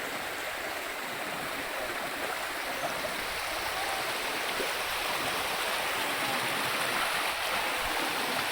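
Water of a moorland clough stream rushing steadily, growing a little louder a few seconds in.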